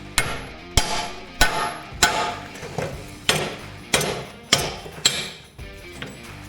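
Hammer striking metal in a steady rhythm: about nine ringing blows, roughly one every two-thirds of a second, one of them lighter.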